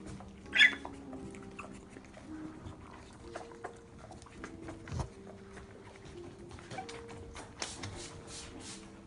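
Puppies squabbling and scuffling on a tiled floor. A short, high puppy yelp comes about half a second in and is the loudest sound. Scattered paw and claw taps follow, with a single knock near the middle and a quicker patter of scuffling near the end.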